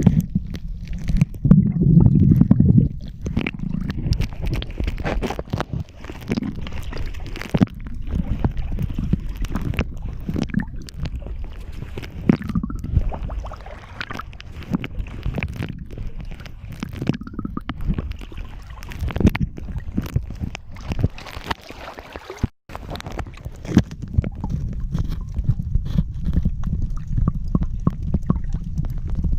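Underwater water noise: a low rumbling with gurgles and many scattered clicks and knocks. It cuts out briefly about three quarters of the way through.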